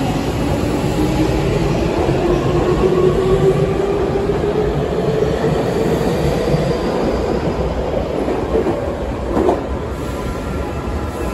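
Tokyu 5080-series electric train accelerating away from a station platform: the whine of its traction motors climbs steadily in pitch as it gathers speed, over the rumble of wheels on rail. A brief sharp click comes near the end.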